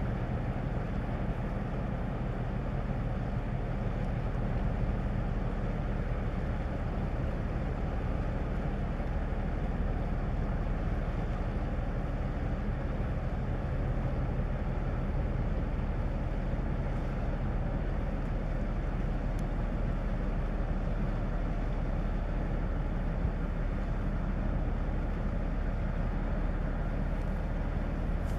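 Ship's engines running, a steady low drone that does not change.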